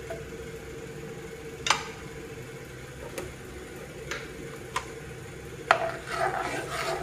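A spoon stirring and scraping thick white sauce in a metal pan near the end, after a few sharp isolated ticks over a steady hum.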